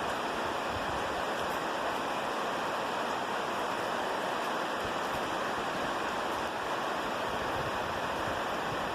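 Steady hiss of falling rain, even and unbroken with no thunder.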